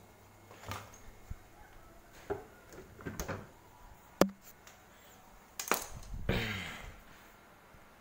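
A few scattered knocks and clicks on a quiet background. The sharpest click comes about four seconds in, and the loudest knocks come near six seconds.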